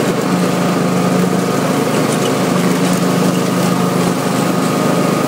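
Riding lawn mower running steadily while mowing grass: a constant engine hum with a thin, steady whine above it.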